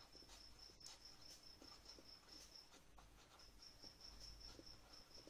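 Near silence: faint marker-pen strokes on paper, with a faint, steady high-pitched pulsing tone behind them.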